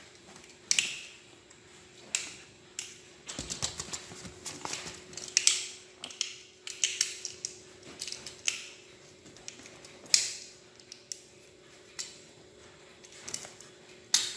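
Small plastic toy gun clicking, creaking and snapping as a baby monkey chews and pries at it, in irregular sharp clicks a few a second; the toy is being broken.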